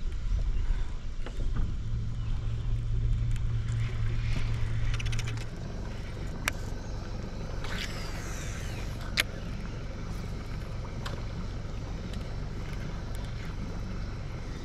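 A small boat's motor running with a low, steady hum, which cuts off about five and a half seconds in; after that a quieter, even background with a few sharp clicks.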